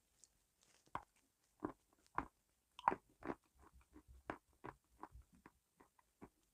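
Close-miked chewing of crunchy food: a run of sharp, irregular crunches, loudest between about one and three and a half seconds in, then smaller, quicker crunches as the chewing goes on.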